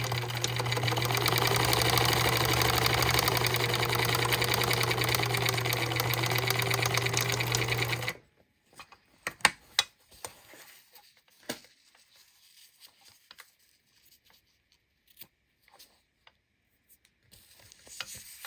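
Electric sewing machine running at speed, its needle stitching rapidly through a thick elastic strap with hook-and-loop tape. It stops abruptly about eight seconds in, followed by a few light clicks and rustles as the strap is handled.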